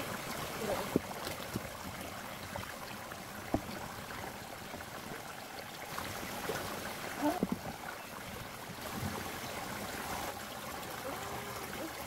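Small waterfall splashing steadily into a shallow stream pool. A few sharp knocks and splashes come from a pierced plastic bottle and hose being handled in the water.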